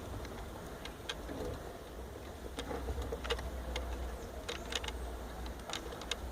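Irregular light clicks and taps from handling a wiring plug and connector, over a low steady hum.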